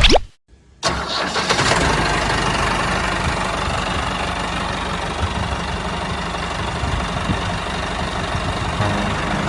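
Tractor engine running steadily, cutting in abruptly after a brief moment of silence just under a second in.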